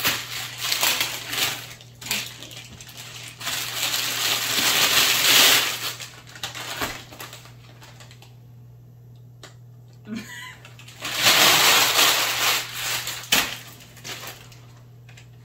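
A thin plastic shipping bag is slit open and rustles and crinkles as a backpack is pulled out of it and handled. The crinkling comes in several loud bursts, with a quieter stretch a little past the middle.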